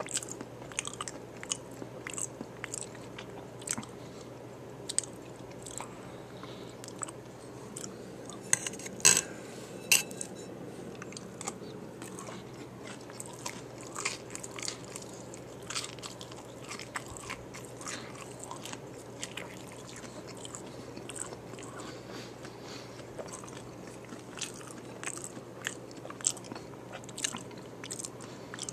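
Close-miked chewing and biting of a taco bowl, with short crisp crackles of the hard tortilla shell scattered throughout; the loudest crunches come about nine and ten seconds in.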